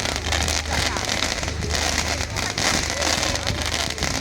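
Fireworks display going off: a dense, continuous run of crackling bangs, over a steady low hum.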